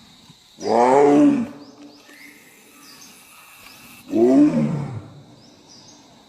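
A large wild animal calling twice, each call about a second long and sliding down in pitch. A faint steady high tone and a few faint chirps sound behind it.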